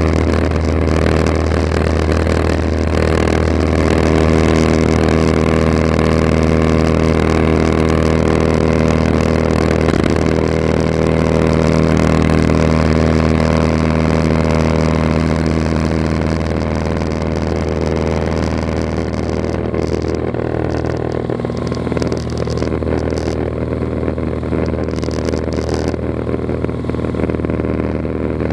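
Cessna 182RG's six-cylinder Lycoming engine and propeller running at high power as heard inside the cabin during takeoff and initial climb, a steady drone that eases slightly about halfway through.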